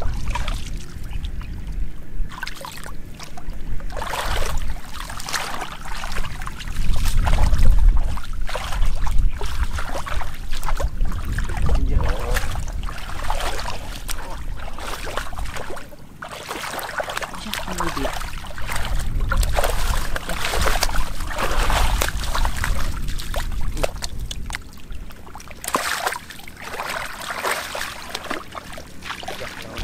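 Shallow muddy water splashing and sloshing irregularly as bare feet wade and stir through it, with a low rumble loudest about seven seconds in.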